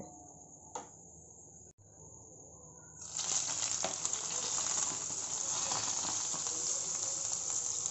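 Hot tempering oil with cumin seeds and dried red chillies poured into cold yogurt, sizzling loudly and steadily from about three seconds in, after a quiet start.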